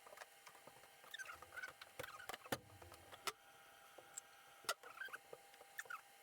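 Faint hand-working noises on an engine: scattered light clicks and knocks, the sharpest about two and a half seconds in and near five seconds, with a few short squeaks as parts are handled and fitted.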